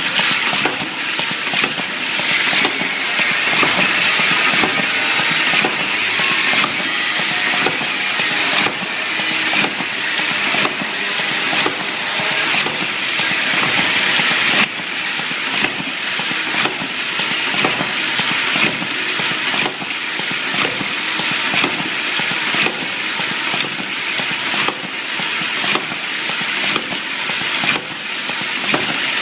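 Lid-pressing (capping) machine running: steady mechanical noise with frequent irregular clicks and knocks. The high hiss drops about halfway through.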